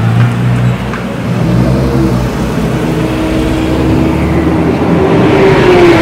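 Cars pulling out of a pit garage and driving slowly down a pit lane: a Porsche 911 GT3 RS's flat-six running at low revs, then a second car, a VW Golf GTI, following it. The engine note is steady, rises slightly towards the end and dips again.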